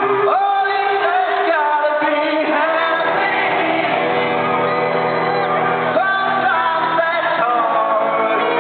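Live pop-rock band playing with sung vocals, echoing through a large arena, with the crowd shouting along.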